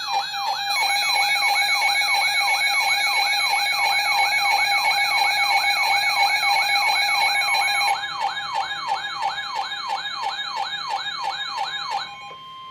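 Weather alert radio siren sounding for an incoming severe thunderstorm warning: a rising whoop repeating about three times a second over a steady tone. It gets somewhat quieter about eight seconds in and stops near the end, leaving a single steady tone.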